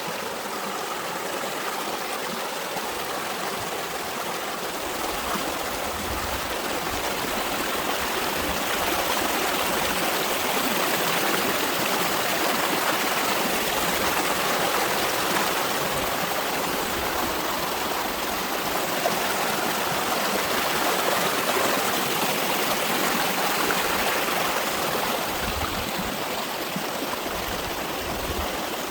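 Mountain valley stream running over its bed in a steady, even rush of water, growing somewhat louder through the middle stretch and easing again near the end.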